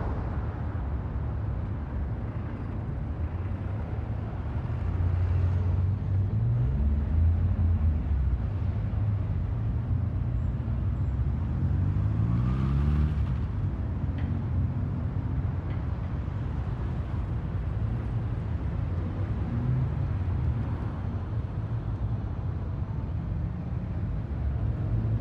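Road traffic at an intersection: a steady low rumble of car and truck engines. About halfway through, one vehicle pulls away, its engine pitch rising as it accelerates.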